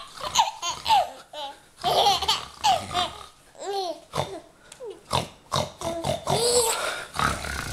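Infant laughing in a string of short, breathy bursts and squeals, mixed with a man's playful silly noises.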